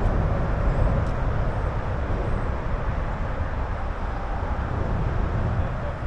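Freight train of two diesel locomotives pulling covered hopper cars, passing in the distance: a steady low diesel rumble with the noise of the cars rolling.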